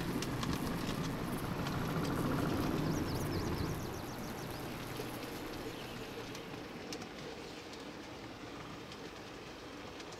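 A model train running on the track: a locomotive pulling freight cars, heard as a steady rolling rumble with light clicking. It is loudest for the first four seconds, then fades as the train moves off. A few faint high chirps come about three seconds in.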